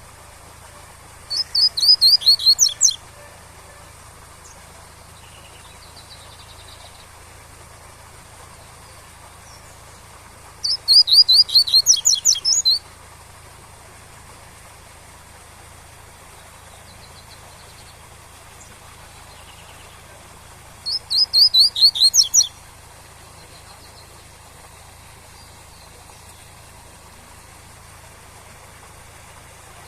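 Double-collared seedeater (coleiro) singing its 'tui-tui' song three times, each phrase a quick run of high notes lasting about two seconds, roughly ten seconds apart. A faint steady waterfall rush runs underneath.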